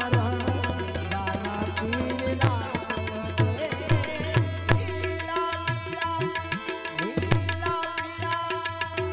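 Live Gujarati devotional bhajan music: a harmonium plays steady sustained notes under repeated hand-drum beats. Small hand cymbals (manjira) strike along, and a man sings.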